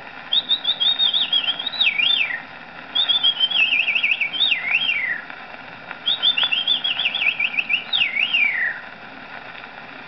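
A man whistling an imitation of a chaffinch's song three times: each phrase is a quick run of repeated notes that drop in pitch, ending abruptly in a downward flourish. It plays from an old shellac record on a horn gramophone, with steady surface hiss underneath.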